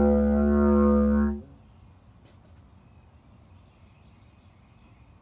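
Didgeridoo drone, a steady low note with a rich stack of overtones, that stops suddenly about a second and a half in. Faint bird chirps follow, repeating about once a second.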